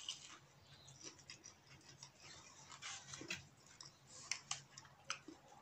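Faint chewing of a meatball, with scattered soft crunches and mouth clicks and a few sharper ticks in the second half.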